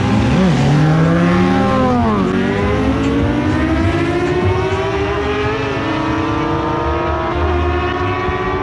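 Ducati 848's V-twin engine at full throttle, accelerating hard through the gears. The note climbs steadily and drops at each upshift, about two seconds in and twice more later on.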